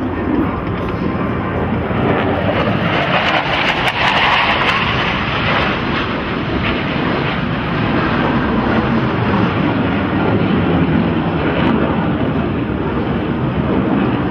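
Loud, steady jet noise of an F/A-18 Hornet's twin jet engines as the jet flies past and climbs away overhead, loudest and hissiest about three to five seconds in.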